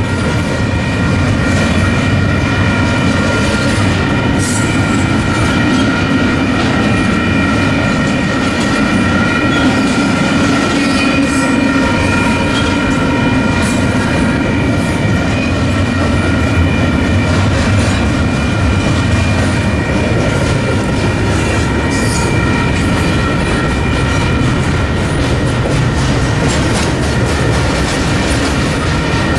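Double-stack intermodal freight train rolling past: a steady rumble of the container cars with scattered wheel clatter, and steady high-pitched tones held over it.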